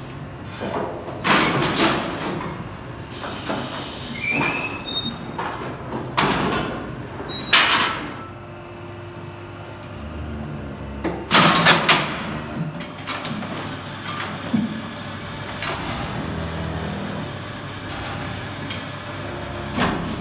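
Steel gates and bars of a cow hoof-trimming chute clanking and rattling several times as a dairy cow is moved in and held, with a short hiss a few seconds in.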